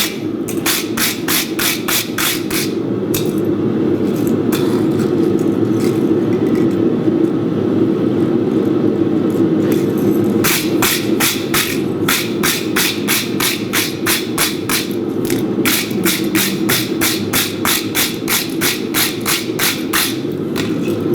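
Blacksmith's hammer striking hot steel on an anvil in quick runs of about four blows a second, with a pause in the middle where only a few scattered blows fall. A steady low rushing noise runs underneath.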